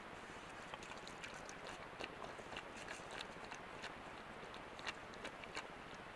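White-tailed deer stepping and foraging in dry leaf litter: irregular crackles and clicks of leaves and twigs under hooves, over a steady hiss, with the sharpest crackles about five seconds in.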